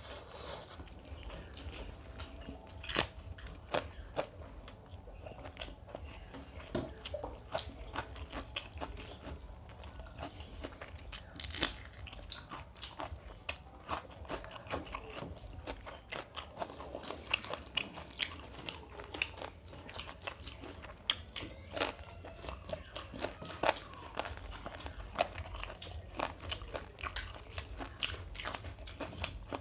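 Close-up eating sounds of two people eating mutton biryani with their hands: chewing with many short, sharp mouth clicks and crunches, including a bite of raw onion near the end.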